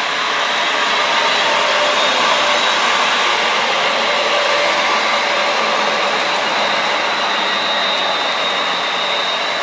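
Class 350 Desiro electric multiple-unit train passing at speed: a steady rush of wheels on rail with a thin high whine running through it.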